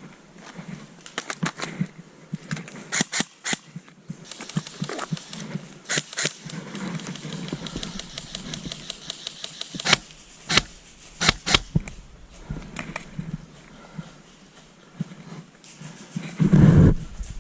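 Footsteps and rattling kit of an airsoft player moving through woodland, with sharp clicks and knocks throughout. There is a quick run of faint ticks about halfway through and a loud dull thump near the end.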